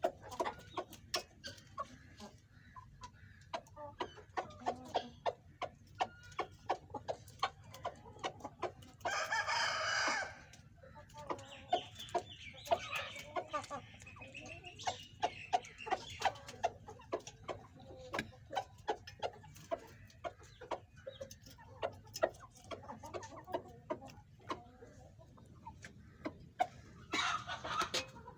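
Chickens clucking and calling, with two louder, longer calls about nine seconds in and near the end, over a steady run of quick clicks.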